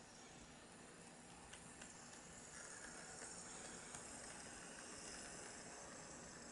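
Faint running sound of an HO-gauge model electric locomotive passing close by on its track: a high whirring hiss from its motor and wheels, swelling as it nears, with a few light clicks from the rails.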